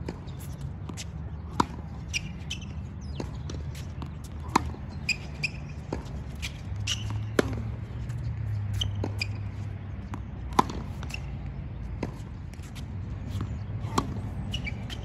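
Tennis rally on a hard court: crisp racket-on-ball hits about every three seconds, with softer ball bounces and short sneaker squeaks between them.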